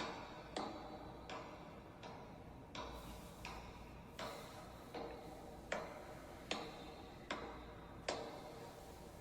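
Faint, regular ticking, about one sharp tick every three-quarters of a second, each with a brief ring, like a clock, over a low steady hum.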